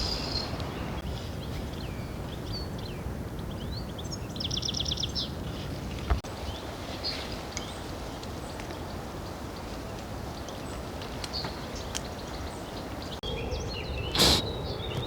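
Steady background noise with scattered bird chirps, including a short rapid trill a little over four seconds in. A sharp click comes about six seconds in, and a loud knock comes near the end.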